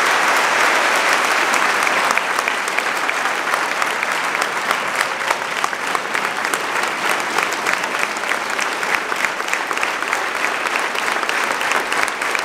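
A large audience applauding steadily. The clapping is a dense wash at first, and after about two seconds the individual claps become more distinct.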